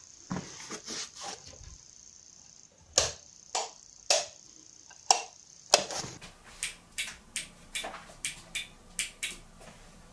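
A wall light switch is clicked on and off over and over, about a dozen sharp clicks. They come faster in the second half, about three a second. The light will not come on.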